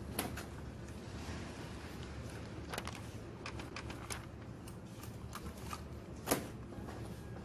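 Supermarket checkout handling: scattered clicks, knocks and rustles of groceries being moved and set down, over a steady low hum of the store. One sharper knock about six seconds in.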